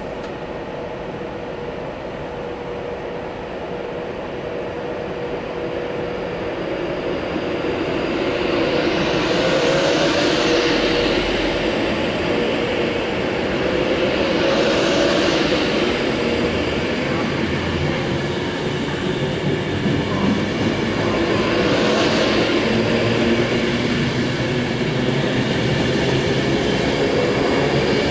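Class 390 Pendolino electric train pulling away and running past close by. The sound builds over the first several seconds into a steady rumble and rush of wheels on rail that swells in three waves, over a steady electric whine.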